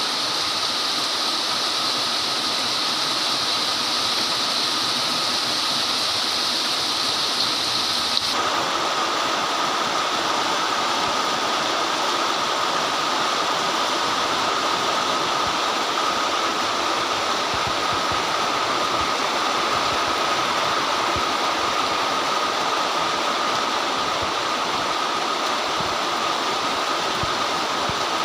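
Very heavy, torrential rain pouring down in a steady, dense hiss. About eight seconds in the sound changes abruptly in character, then carries on just as steady.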